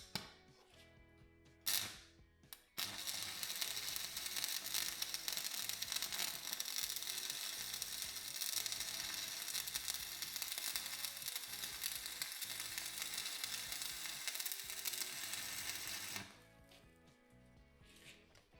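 Stick (arc) welder with a 2.5 mm rod at about 165 amps, its arc crackling steadily for about 13 seconds after a few short clicks as the bead is struck. It cuts off suddenly near the end. The bead is being run round the inside of a seized wheel bearing's outer race to shrink it so it will tap out.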